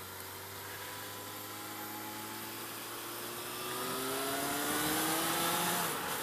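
Suzuki Bandit 600S inline-four engine pulling under acceleration, its pitch rising slowly and then more steeply from about four seconds in, before falling away near the end. Wind noise hisses underneath.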